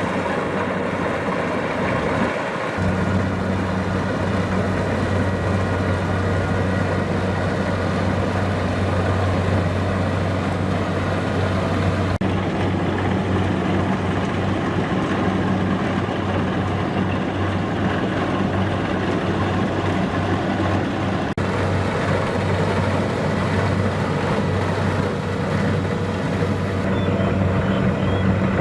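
Kubota DC-70 Plus rice combine harvester running steadily, its diesel engine and machinery making a dense mechanical din. A deep steady hum comes in about three seconds in.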